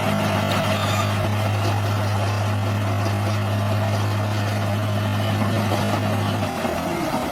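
Heavy bulldozer's diesel engine running steadily with a deep, even hum under a wide mechanical rumble. About six and a half seconds in, the steady hum drops away.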